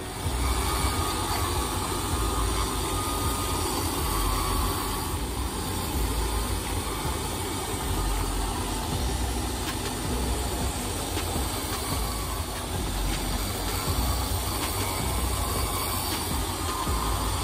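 Shoe finishing machine running steadily while a small spinning cutter on its spindle trims the edge of a leather double sole.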